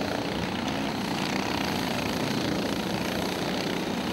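Racing go-kart engines running at speed as karts drive past on the track, a steady high-pitched engine drone.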